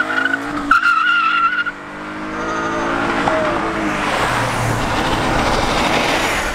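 A Ford Mustang pulls away hard. A brief high tire squeal lasts for the first second and a half or so, while the engine note falls as the car drives off. Road noise from a passing car then swells.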